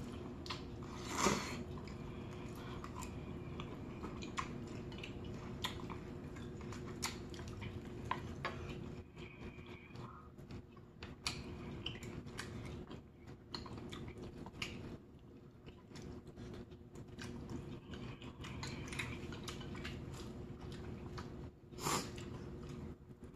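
Close-miked chewing of spicy seafood instant noodles and rice cakes, with many small wet clicks and mouth sounds, over a faint steady hum. A louder noise comes about a second in and another near the end.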